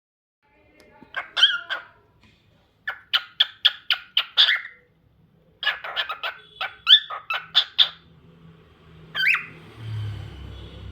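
Lutino cockatiel chirping in three quick runs of short, sharp calls, about four a second, with a single call a little after nine seconds in.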